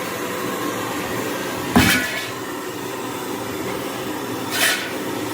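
Overhauled generator engine running steadily, with a sharp knock about two seconds in and a shorter, higher-pitched clank near the end.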